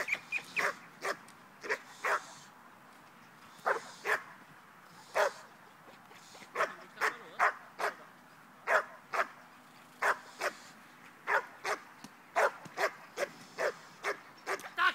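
Spanish bulldog barking at a decoy in a bite suit, the defensive barking of aggression training. Sharp single barks come in loose runs, with a short lull a few seconds in and quicker barks in the second half.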